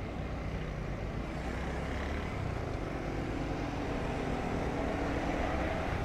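Road traffic noise heard while moving along a busy road: a steady rush of engines and tyres, with a faint engine hum in the middle seconds.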